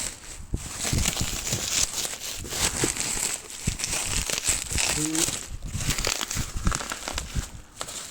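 Plastic wrapping and instant-noodle packets crinkling and rustling as they are handled and pulled out of the carton, a dense run of irregular crackles.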